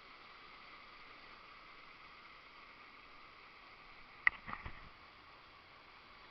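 Steady rush of running water from the river and falls, with a short cluster of sharp clicks about four seconds in.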